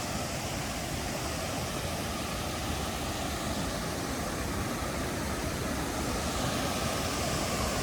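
Steady rushing of waterfalls and river water, an even wash of noise with no breaks.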